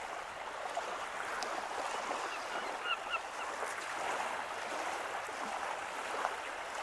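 Small waves washing onto a shingle beach in a steady hiss, with gulls from a feeding flock giving a few short, faint calls around the middle.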